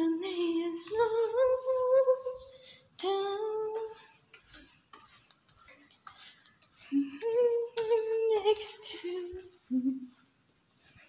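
A woman humming a tune in long held notes, in three phrases with a pause in the middle.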